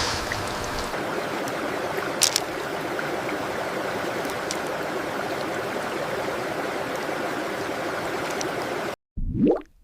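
Steady rushing of a stream or small waterfall, with one short click a little over two seconds in. The water sound cuts off abruptly about nine seconds in and is followed by a single water-drop plop rising in pitch.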